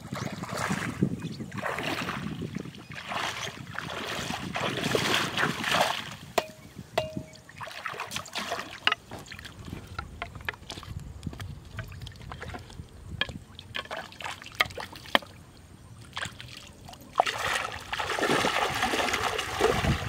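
Shallow river water splashing and sloshing as someone wades and works wooden stakes and a net in it, with scattered small knocks and clicks. The splashing is heaviest for the first several seconds and again near the end.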